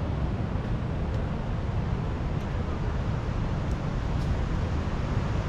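Steady low rush of ocean surf and wind, with no distinct events.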